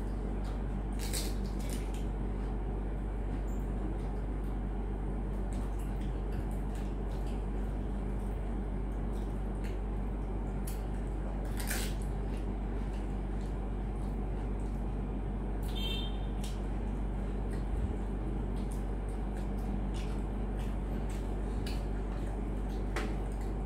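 Pani puri being eaten: a few short crisp clicks and crunches as the puri shells are cracked open, handled on the plates and bitten, over a steady low hum.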